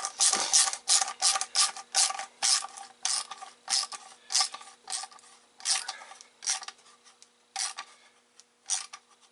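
Worm-gear hose clamp being screwed up by hand: a quick run of metallic ratcheting clicks, about three a second, that thins out to scattered clicks near the end.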